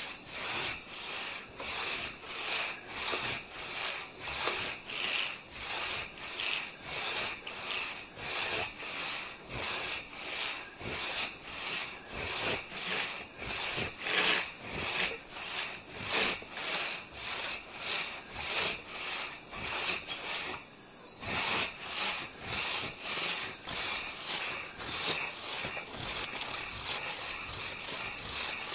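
Hand saw cutting through a maple log in steady back-and-forth strokes, about one and a half a second, with a brief pause about two-thirds of the way through.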